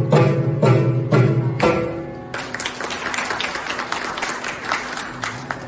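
Saraswati veena and mridangam playing the closing phrase of a Carnatic piece: plucked veena notes ringing over the drum strokes. About two seconds in the music stops and an audience claps, the applause slowly fading.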